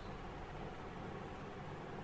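Steady hiss with a low hum underneath and no distinct events: background noise.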